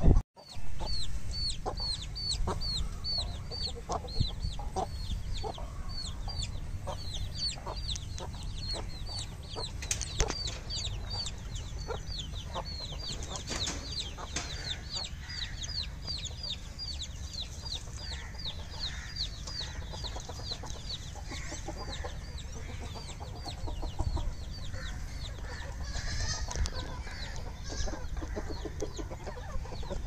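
Domestic chicks peeping: a steady string of short, high, falling peeps about three a second, thinning out near the end, with a few lower clucks from hens. A steady low rumble runs underneath.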